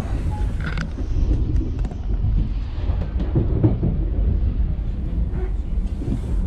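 Passenger train running on the rails, heard from inside the carriage as a loud, steady low rumble with a few faint clicks.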